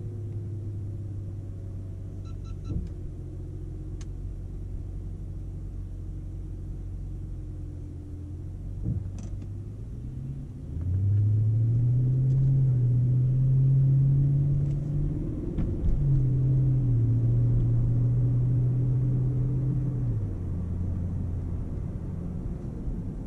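BMW E39 5 Series engine and road noise heard from inside the cabin: a steady low hum, then about ten seconds in the engine note rises and grows louder as the car accelerates, dips briefly, holds, and settles back down near the end.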